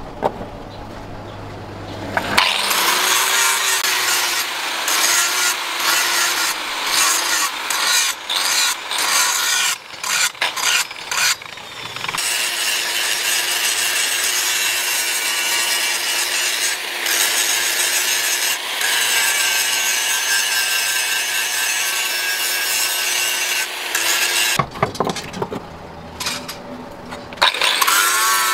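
Angle grinder with an abrasive disc grinding a steel axe head: a harsh grinding hiss over the motor's steady whine, starting about two seconds in. In the first half the grinding keeps breaking off briefly as the disc comes off and back onto the metal, then it runs steadily. It drops off for a few seconds near the end and starts again just before the end.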